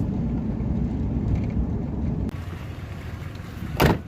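Vehicle driving, a steady low rumble of engine and road noise that cuts off abruptly about two seconds in. Near the end comes a single short, loud thump.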